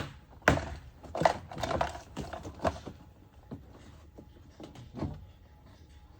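Irregular sharp clicks and knocks of hard plastic door trim and parts being worked loose by hand, a few louder knocks among lighter clicks.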